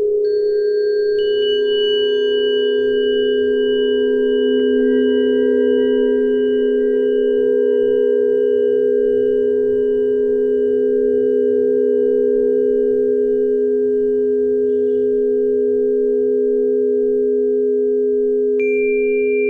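A 417 Hz Solfeggio meditation drone: steady pure tones held low in pitch with a slow, gentle pulse. Soft, high, bell-like tones come in about a second in and ring on, and a new one enters near the end.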